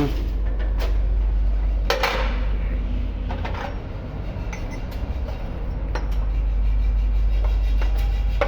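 A few scattered metallic clinks and knocks over a steady low rumble, the loudest about two seconds in with a short ring: galvanised iron conduit pipe and fittings being handled.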